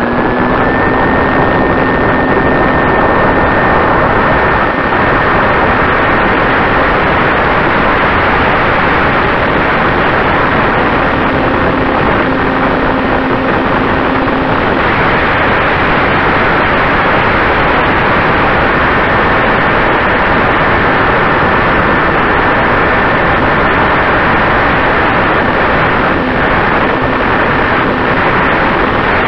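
Electric motor and propeller of a ParkZone T-28 Trojan RC plane running at high throttle, heard from a camera mounted on the plane. A steady high motor whine sits over a loud, even rush of propeller wash and airflow.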